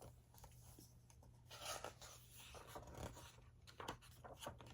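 Faint rustling and rubbing of paper as picture-book pages are handled and turned, the pages sticking together, with a few soft brushes and taps.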